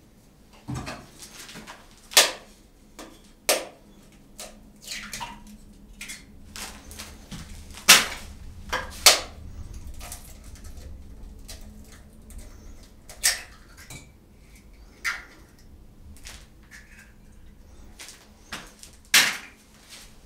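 Eggs being cracked into a glass bowl: a scattering of sharp taps and clinks of shell and glass, the loudest about eight seconds in.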